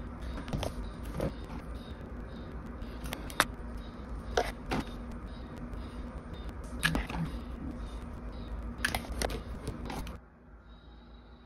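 Pen work on a paper diary on a wooden desk: sharp clicks and taps of pens and pen caps against the page and desk, some in close pairs, over a steady low hum. A little before the end the sound drops abruptly to a fainter, quieter background.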